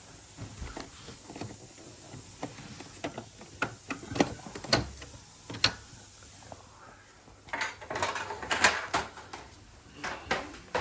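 Irregular sharp clicks, knocks and rattles of hard plastic parts being handled, with a denser burst of them about eight seconds in.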